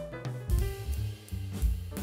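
Background music with a drum beat and a bass line.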